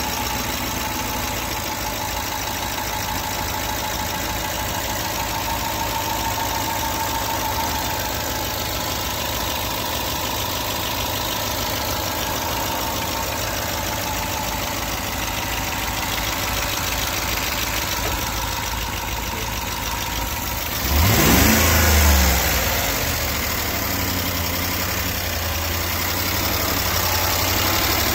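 2012 Land Rover LR4's 5.0-litre V8 idling shortly after a cold start, with a fast, steady ticking/knocking noise from the engine. About three quarters of the way through, the engine is briefly revved and then settles back to idle.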